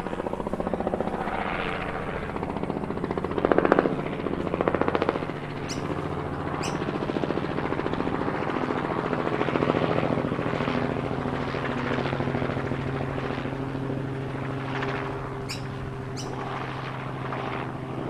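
Small DC motor of a homemade soda-can RC helicopter spinning its rotor: a steady whirring hum with a buzzy edge, briefly louder a few seconds in. A few sharp ticks come about six seconds in and again near the end.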